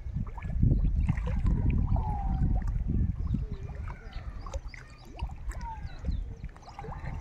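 Wind buffeting the microphone in an uneven low rumble, with short chirping bird calls over it.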